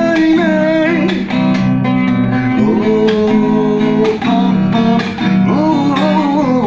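Song played on guitar, with strummed acoustic-style chords under a singer who holds the end of a sung line about a second in and carries on singing without clear words.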